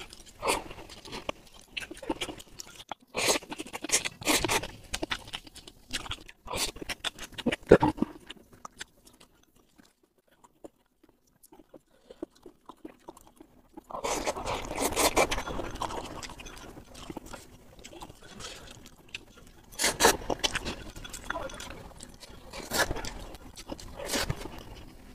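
Eating sounds picked up by a clip-on microphone: chewing and slurping of noodles and chopsticks scraping a glass bowl, in bursts of sharp clicks. There is a quiet pause of several seconds in the middle, and a sip from the bowl near the end.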